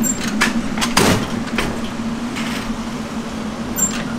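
Candy batch roller and rope sizer machine running with a steady low hum, with a few sharp knocks and clatters, the loudest about a second in.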